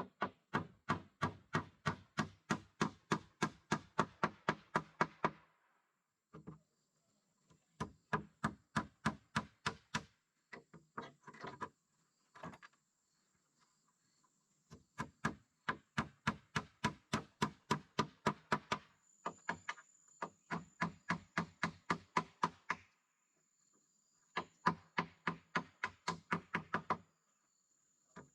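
Rapid, even strikes of a tool on wood, about four a second, in runs of a few seconds separated by short pauses.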